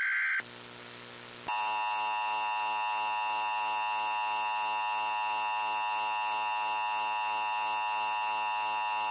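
Emergency Alert System broadcast tones. The last burst of the warbling SAME data header ends just after the start and a second of faint hiss follows. About a second and a half in, the EAS attention signal comes in: a steady, unbroken alert tone that holds at an even level, the cue that a spoken emergency message follows.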